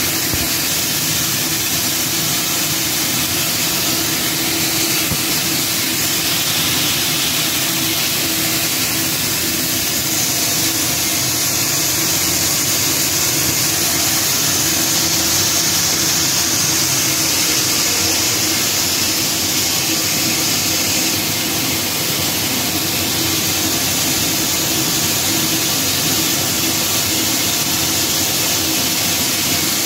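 Pulverizer-type atta chakki flour mill running while grinding grain: a loud, even machine noise with a steady hum and a high hiss over it.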